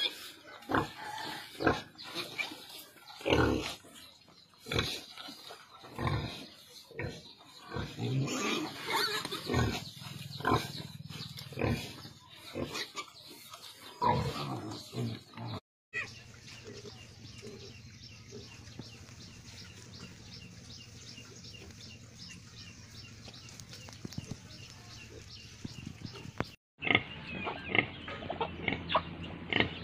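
Nursing piglets squealing and grunting in short, irregular cries as they suckle at a sow. About halfway through this gives way to a quieter steady hum with faint rapid ticking. Near the end the pig squeals and grunts return.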